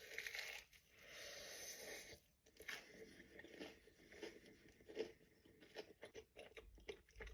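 Faint crunching bite into a pan-toasted sandwich with crisp, mayo-fried bread, followed by chewing: a rustle in the first two seconds, then many short, irregular crunches.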